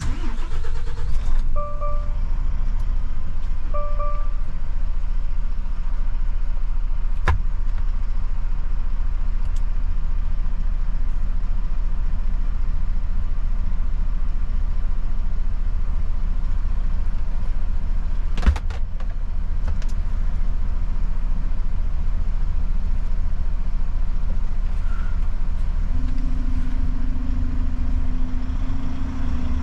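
Volvo FH truck driving, a steady low engine and road rumble. Two short beeps come about two and four seconds in, a couple of sharp knocks fall later, and a steady low hum joins near the end.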